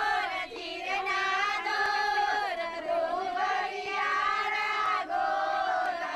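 A group of women singing a song together, drawn-out lines held in unison with slow pitch changes, as sung at a turmeric (haldi) ceremony.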